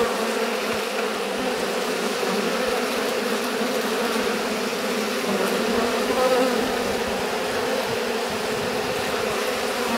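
A dense mass of honeybees clustered on a hive front, buzzing in a steady, unbroken hum close to the microphone.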